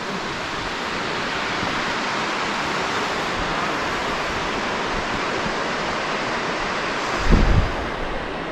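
Steady rushing of falling water, a constant even hiss. About seven seconds in there is a brief low rumble of wind buffeting the microphone.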